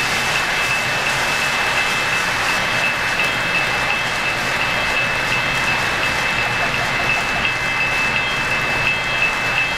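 O-gauge model freight train rolling past close by: a steady rushing clatter of metal wheels on the track, with a faint steady whine and a regular light ticking.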